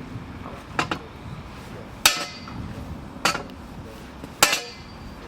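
Hammer blows on a steel rod, four strikes about a second and a quarter apart, each with a short metallic ring: the bent level crossing drive rod being hammered straight.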